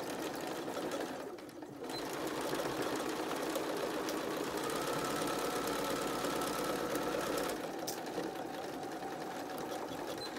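Electric sewing machine stitching a seam through cotton fabric. It stops briefly about a second and a half in, then runs steadily and louder, easing off somewhat near the end.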